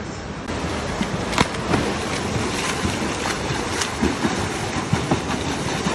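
A swimmer kicking hard in a pool: steady churning water with many short, sharp splashes.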